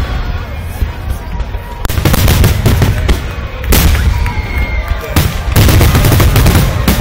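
Aerial fireworks display: shells bursting with deep booms a second or two apart, followed by a dense run of crackling near the end.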